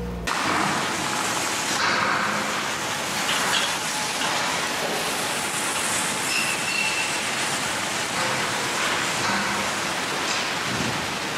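Steady rushing noise of a cattle barn's ambience, with a few brief louder rustles among the cows at the feed fence.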